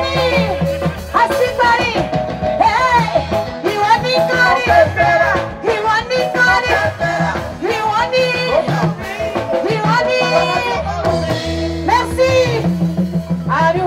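A woman singing a melody with vibrato into a microphone, backed by a live band of guitars, keyboard, bass and drums.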